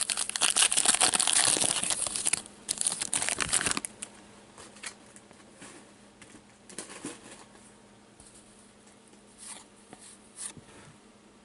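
Trading-card pack wrapper being torn open and crinkled, a dense crackling that stops about four seconds in. After that, only a few soft slides and taps of cards being handled.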